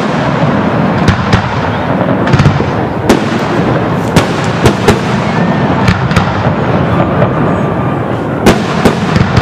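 Fireworks display: aerial shells bursting in quick, irregular succession, a dozen or more sharp bangs over a steady background rumble. The loudest bang comes near the end.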